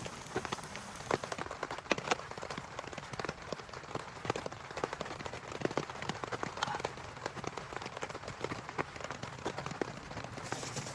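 Rain falling, with many separate drops ticking sharply on a surface close by over a steady hiss; a louder hiss swells briefly near the end.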